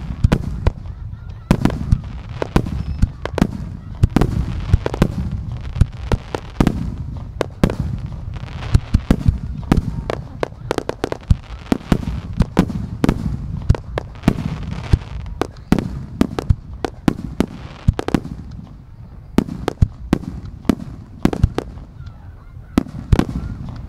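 Aerial firework shells launching and bursting in rapid succession: a dense, irregular string of sharp booms and cracks, several a second, over a continuous low rumble.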